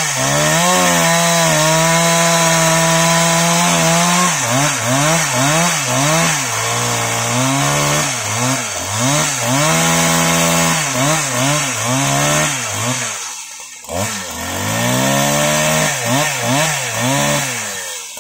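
Husqvarna 365 Special two-stroke chainsaw ripping lengthwise through a teak log at full throttle, its engine pitch dipping and recovering again and again as the chain loads up in the cut. About thirteen seconds in the revs drop away briefly and climb back, and they fall off at the very end as the slab comes free.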